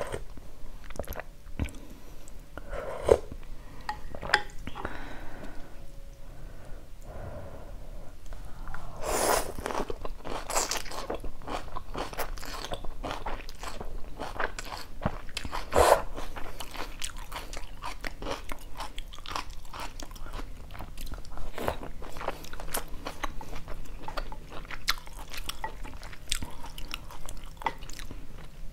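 Close-up eating sounds: a person slurping pho rice noodles and chewing, with many wet clicks and smacks. Louder bursts come about nine to eleven seconds in and again near sixteen seconds.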